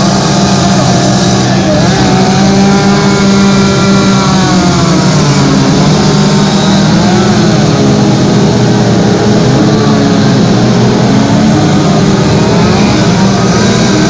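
Chainsaws running hard while carving wood, several at once, their engine pitch rising and falling as they cut.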